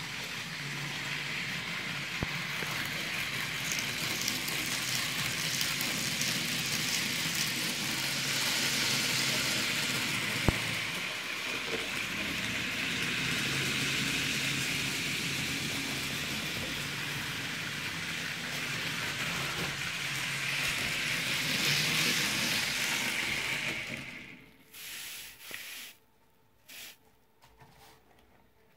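Model trains running on a layout: a steady hiss of small metal wheels rolling on the rails with a faint motor hum, swelling twice as trains pass, with one sharp click near the middle. The running noise falls away almost to silence shortly before the end.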